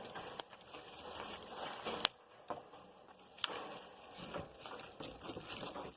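Scattered rustling and handling noises with a few light clicks, and one sharp click about two seconds in; no saw motor running.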